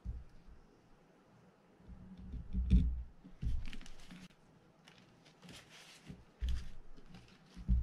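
Workbench handling noises: a few dull bumps of hands and parts on a padded mat, and brief rustles, one of them a blue paper towel rubbed over a gloved hand about three and a half seconds in.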